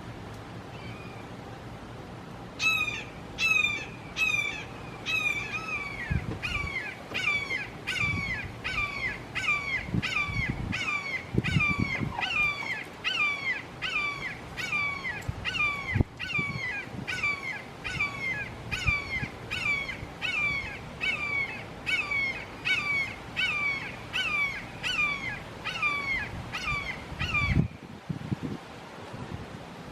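Red-shouldered hawk giving a long, loud series of kee-ah calls, each a slurred downward scream, about one and a half a second. They begin a few seconds in and stop abruptly near the end.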